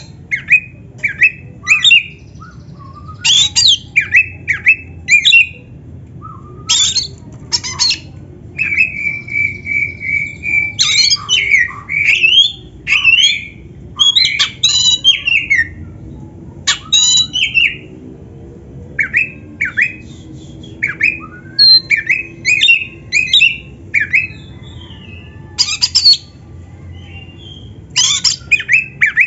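Oriental magpie-robin (kacer) singing loudly in quick, varied phrases of sliding whistles, chirps and harsh notes, broken by short pauses, with one long held whistle about nine seconds in. A steady low hum runs underneath.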